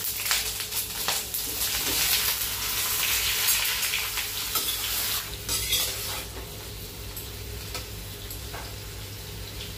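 Potato and jackfruit pieces sizzling as they drop into hot oil in a kadhai, while a steel spatula scrapes and clicks against the pan as they are stirred. The sizzle is strongest at first and settles down about six seconds in.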